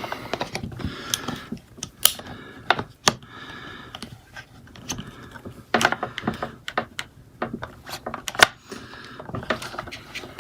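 Irregular clicks, taps and knocks of ab exercise machine parts being handled and pushed together, with a brief scrape about three seconds in.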